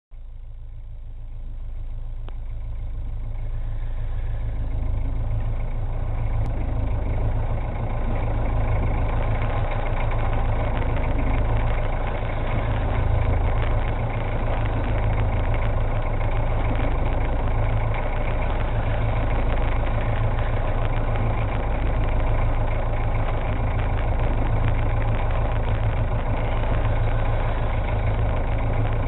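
Fishing boat's engine idling with a steady low drone, growing louder over the first few seconds.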